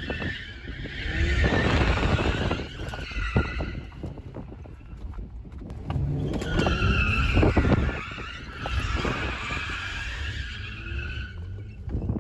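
Rear tyres of an Infiniti G35 coupe squealing as the car is swung into slides, over its V6 engine held at high revs, heard from inside the cabin. The squeal swells and fades in two long stretches, the longer and louder one in the second half. The car is an automatic with an open differential on near-bald tyres.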